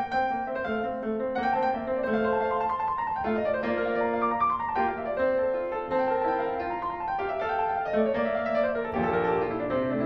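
Background piano music, a melody with quick runs of notes sweeping down and up.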